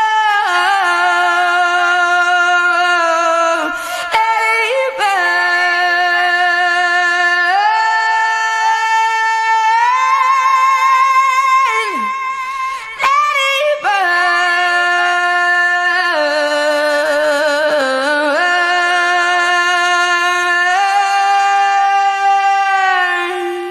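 A woman singing long held notes without words, each lasting several seconds, with vibrato and sliding pitch changes between them and a few brief breaks.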